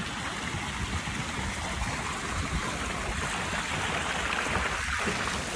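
A steady rushing noise with no distinct events, a little brighter in the middle of the stretch.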